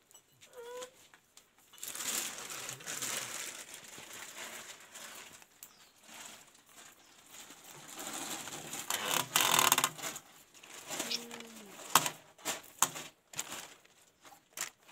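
Plastic sheeting rustling and crinkling as hands scoop and gather freshly ground wet corn around a stone hand mill. It comes in irregular bursts, loudest about nine to ten seconds in, with a few sharp clicks a little later.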